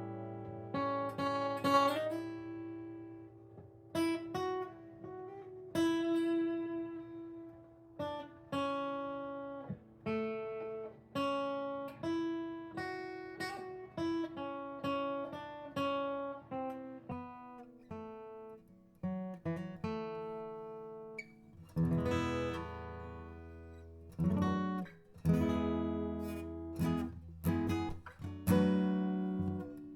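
Solo acoustic guitar played slowly: plucked single notes and chords that ring and fade, with occasional strums. Partway through, the recording switches from a Google Pixel 7 phone's microphone to a Tascam Portacapture X8 field recorder, and the guitar sounds fuller in the bass.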